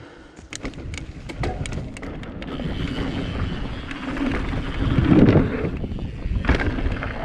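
Mountain bike rolling fast over a dirt trail with wind rushing on the microphone, tyre and trail noise building to a heavy thud about five seconds in and a sharp knock a second later, typical of a bike landing a jump.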